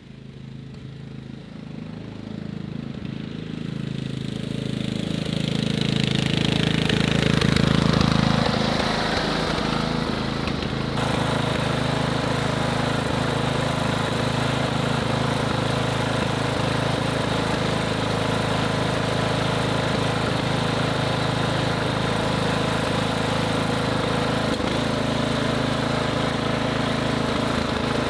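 Ariens riding mower's 17.5 hp Briggs & Stratton engine running, now that a new carburetor has cured its cranks-but-won't-start fault. It grows louder over the first several seconds, then runs steadily while the mower is driven.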